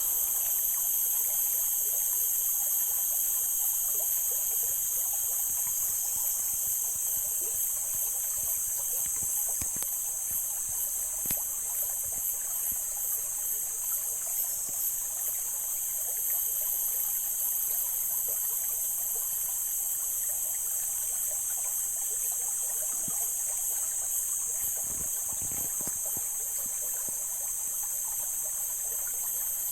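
Mountain stream water flowing and trickling steadily, with small splashes.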